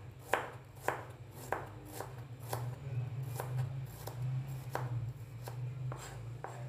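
Kitchen knife slicing small cloves on a plastic cutting board: sharp knocks of the blade on the board in a slow, uneven rhythm, about one every half second. A steady low hum runs underneath.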